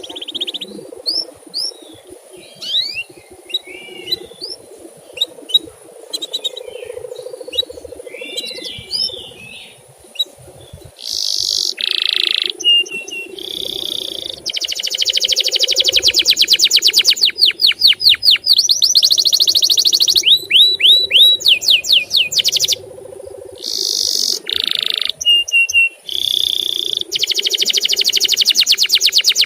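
Male canary singing: scattered high chirps and short warbled phrases at first, then from about eleven seconds in loud, very rapid trills of repeated notes.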